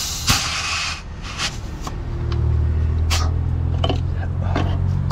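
Compressed air hissing from a truck's emergency trailer air line, which has just been uncoupled, stopping about a second in. Then a diesel truck engine runs steadily, louder from about two seconds in, with a few light metallic clicks.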